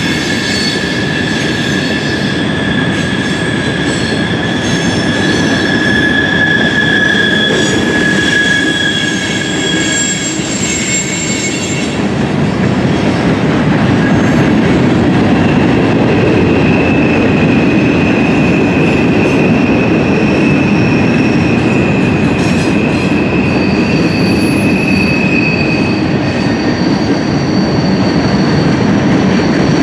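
Freight train cars rolling past: a steady rumble of wheels on rail with long, high, steady wheel squeals, one lasting until about ten seconds in and others through the second half.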